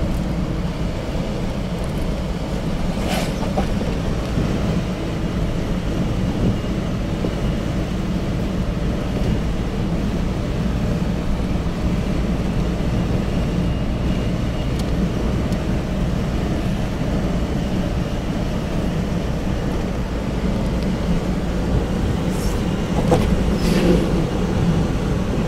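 A moving car's engine and tyre noise heard from inside the cabin: a steady low rumble. A brief knock comes about three seconds in, and a couple more near the end.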